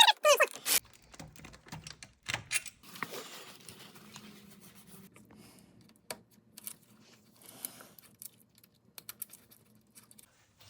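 Scattered light clicks, taps and scrapes of hand tools and engine parts being handled as throttle bodies are taken off.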